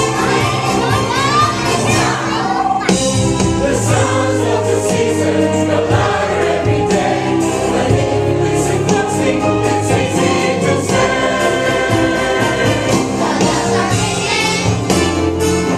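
A choir singing an upbeat gospel-style Christmas song with instrumental accompaniment and a steady beat.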